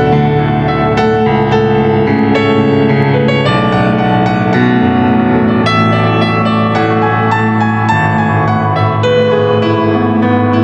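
Piano voice of a Yamaha MOXF synthesizer keyboard played with both hands: slow sustained chords in the bass with a melody line above, the harmony changing about once a second.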